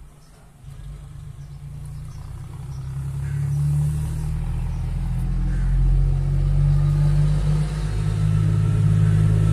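Low, steady engine-like rumble with a hum, building over the first few seconds and then holding.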